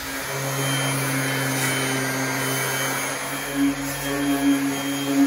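Electric sander-polisher fitted with a nylon abrasive-bristle brush, running steadily as it is worked against the bus's ceiling panels and rivets. Its hum starts just after the beginning, and its level rises and falls a little in the second half.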